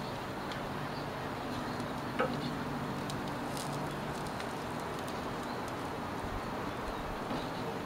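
Elk sausages sizzling steadily on a hot grill grate while steel tongs roll them over. The tongs click sharply against the grate about two seconds in, with a few lighter clicks after.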